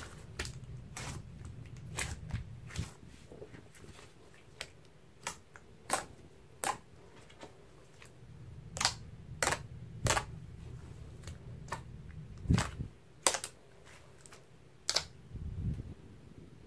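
Hands kneading, folding and pressing a large batch of thick slime, giving many irregular sharp pops and clicks with soft squishing in between.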